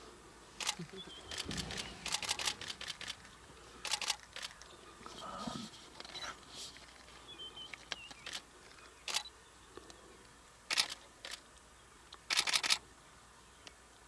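Camera shutters firing in short rapid bursts of clicks, the bursts spaced irregularly, with the longest burst near the end.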